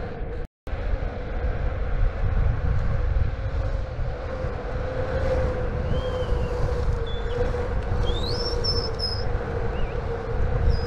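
Electric skateboard with direct-drive motors rolling at speed: a steady low rumble of wheels on pavement and wind, with a steady motor whine that wavers slightly with speed. A few short high chirps, like birds, come in the second half, and the sound cuts out briefly about half a second in.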